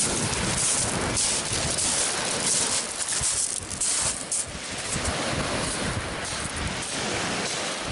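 Wind buffeting the microphone over surf washing onto a shingle beach: a steady rush with low rumbling gusts.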